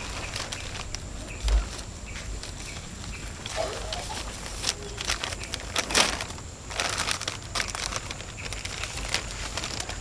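Thin plastic bag crinkling and rustling as it is handled and tied around a fruit on a tree, in irregular short bursts.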